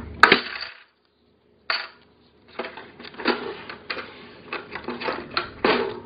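Plastic toy cash register: a sharp click near the start as its keypad is pressed and the drawer opens. About two seconds later comes an uneven run of light clicks and clatter as plastic toy coins and play money are handled in the open drawer tray.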